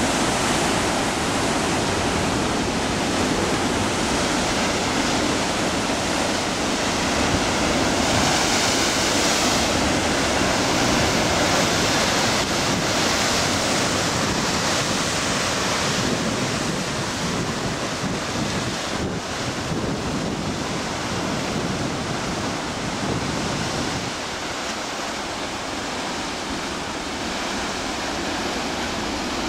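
Heavy ocean surf crashing and churning against basalt rocks: a continuous wash of breaking waves and foaming water, easing a little in the last few seconds.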